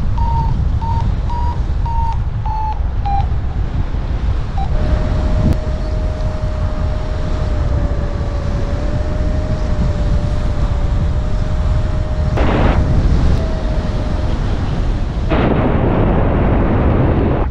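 Wind rushing over the microphone of a paraglider in flight. Over it, a variometer gives short high beeps for the first three seconds. From about five seconds in it holds a steady lower tone until about twelve seconds, the sink tone of a glider losing height. The wind swells louder twice, about twelve and fifteen seconds in.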